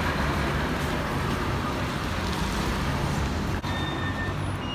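Steady road traffic noise on a city street, vehicles running past, with a single click about three and a half seconds in.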